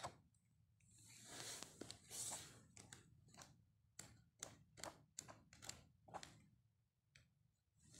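Faint swish and rustle of heavy coated paper as pages of a large album are turned, then a quick run of light clicks and flaps as more pages flip over.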